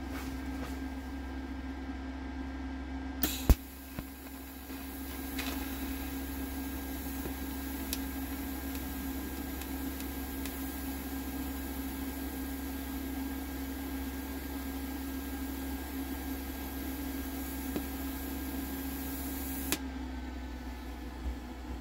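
TIG (GTAW) welding torch arc: about three seconds in, a sharp snap as the arc strikes, then a steady hiss for about sixteen seconds that cuts off sharply near the end as the arc is broken. A steady hum runs underneath throughout.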